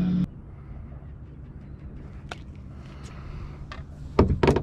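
A hand splashing and swishing in the water at the side of a small boat, a short loud cluster about four seconds in, after a quiet stretch with a low hum and a few faint clicks.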